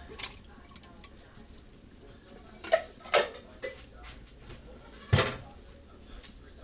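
About five sharp metal clinks and knocks, spaced irregularly, from a tin can and a stainless steel stockpot as canned diced tomatoes are emptied into the pot, over a low steady hum.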